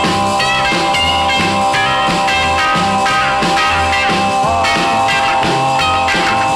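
Rock and roll band music with a steady beat: a bass line stepping under long held chord tones, with short bright guitar notes above.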